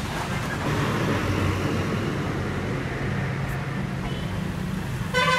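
Steady street traffic noise with a low engine rumble, and a vehicle horn honking near the end.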